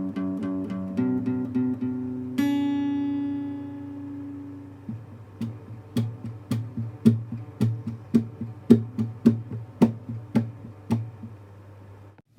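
Instrumental music led by a plucked guitar: a few quick picked notes, then one long ringing note, then rhythmic strums about twice a second over a steady low drone. The music cuts off near the end.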